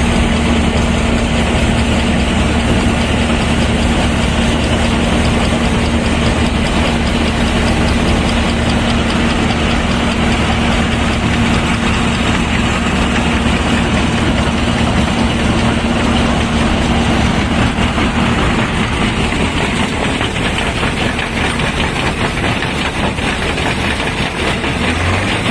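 Heavy engine of harvest machinery running steadily. A steady hum in it fades out about three-quarters of the way through.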